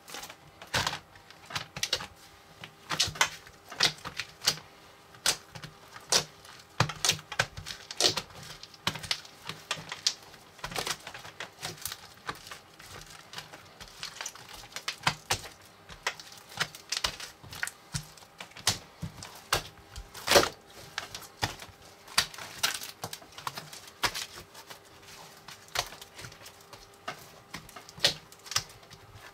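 Foam-ball slime being squeezed and stretched by hand, giving irregular crackling clicks and pops, with one louder pop about twenty seconds in.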